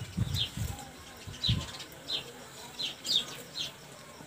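A small bird chirping over and over in short, high, slightly falling notes about every half second. Low thumps of wind buffeting the microphone come in the first second and a half.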